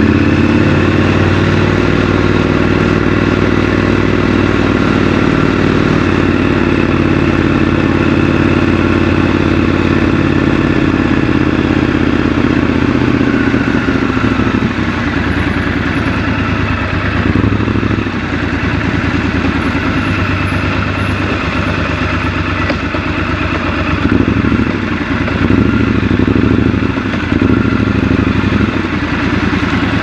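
Triumph Scrambler 1200 XC's parallel-twin engine running under way at city speed. The engine note holds steady for the first half, then rises and falls in short surges as the throttle is opened and closed in slower traffic.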